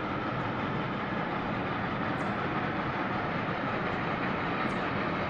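Pacific Coast Shay #2 geared steam locomotive working in the distance, not yet in sight, heard as a steady rushing sound without separate exhaust beats.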